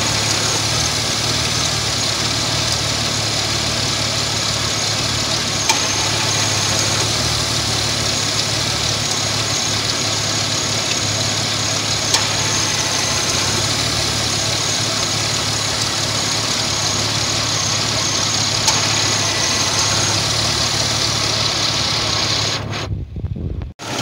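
Pickup truck engine idling steadily under the open hood, with a faint click every six seconds or so as the AC compressor clutch cuts in and out. The compressor is short cycling, a sign the system is still low on refrigerant. The sound drops out briefly near the end.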